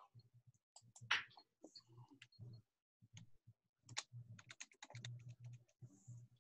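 Faint, irregular clicking and tapping of typing on a computer keyboard, in quick runs, with a low electrical hum that comes and goes with the clicks.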